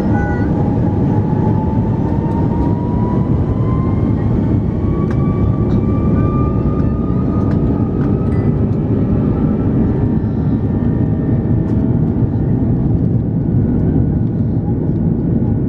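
Airbus A330-300's Rolls-Royce Trent 772B jet engines heard from inside the cabin: a loud, steady rumble with a faint whine that slowly rises in pitch.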